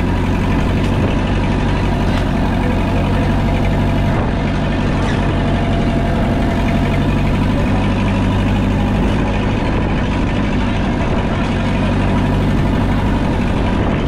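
A fishing bangka's diesel engine running steadily at an even pitch, under a constant rushing noise.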